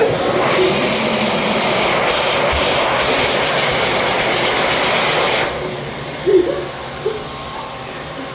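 Electric hand air dryer blowing with a loud, steady rushing hiss, then cutting back about five and a half seconds in and winding down.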